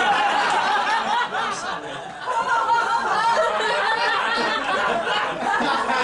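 A comedy audience laughing together after a punchline, many voices at once; the laughter dips briefly about two seconds in and then swells again.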